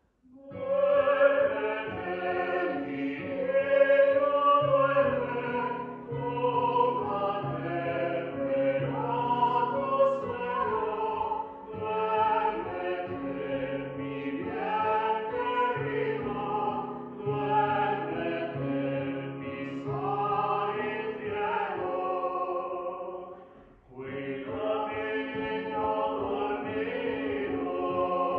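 Small mixed vocal ensemble singing a Spanish Christmas carol (villancico) in harmony, with women's voices over a man's lower part. The singing starts about a second in and breaks off briefly near the end before resuming.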